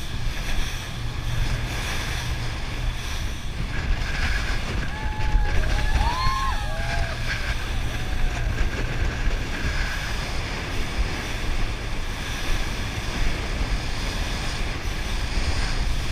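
Wind buffeting the microphone over the rush of water and the steady running of a rigid inflatable motorboat speeding across choppy river water. Around six seconds in, a few short rising and falling tones sound briefly over it.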